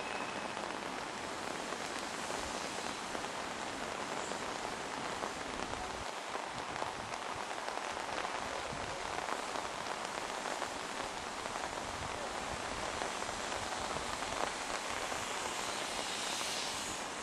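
Steady rain falling on leaves and surfaces, an even hiss with no rhythm.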